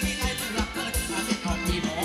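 Live Thai ramwong dance band playing an upbeat song with a steady, driving drum beat.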